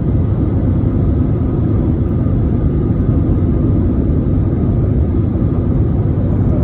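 Airbus A320 engine and airflow noise heard inside the passenger cabin: a steady, even low rumble.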